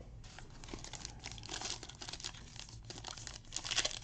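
Foil wrapper of a Panini Prizm football card pack crinkling and crackling in the hands as it is picked up and worked at to tear it open. The crinkling grows louder near the end.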